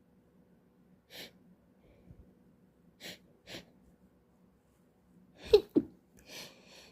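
A woman takes a few short breaths, then sneezes about five and a half seconds in: two sharp, loud bursts close together, followed by a breathy intake.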